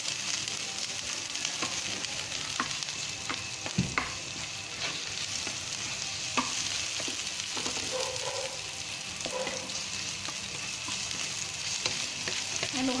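Sliced garlic, onion and ginger sizzling steadily in a little hot oil in a non-stick frying pan, being sautéed until golden brown. A spatula scrapes and taps against the pan now and then as they are stirred, most sharply about four seconds in.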